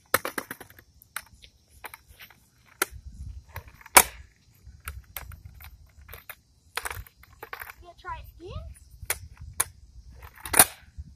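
Skateboard clacking on concrete: the tail snaps down and the deck and wheels knock against the ground in a string of sharp clacks as a kid practises ollies, the loudest about four seconds in and again near the end.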